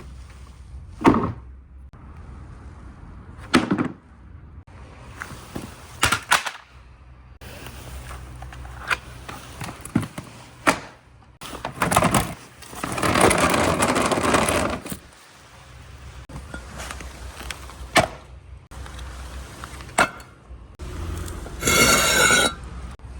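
Glass marbles running through a water marble run: separate sharp clacks as they drop and hit the track, a rolling rumble lasting about two seconds midway, and a brief ringing tone near the end, over a steady low background.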